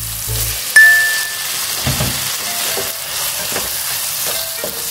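Salted squid sizzling in hot oil in a stone-coated frying pan with chilies and tomato, stirred and scraped with a spatula. About a second in there is a sharp clink that rings briefly.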